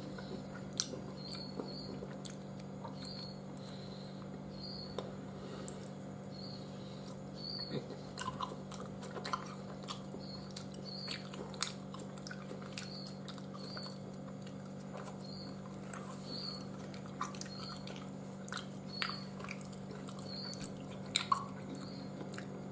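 A person chewing soft Turkish delight with the mouth close to the microphone: scattered small wet clicks and smacks, over a steady low hum.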